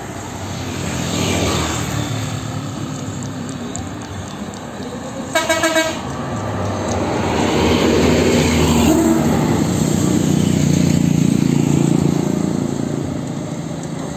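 Tour bus horn sounding a quick run of about four blasts, then the bus passing close with a loud low engine rumble that swells and eases off near the end.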